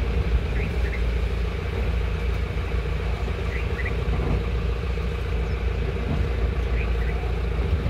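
Motor vehicle engine running steadily, a continuous low hum.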